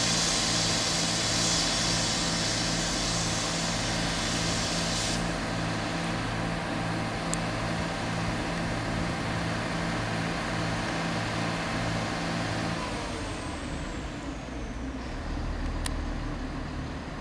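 Class 175 diesel multiple unit pulling away, its underfloor diesel engines running with a steady pulsing drone over a high hiss that stops about five seconds in. About two-thirds of the way through the engine note drops away, leaving a fainter rumble and a falling whine.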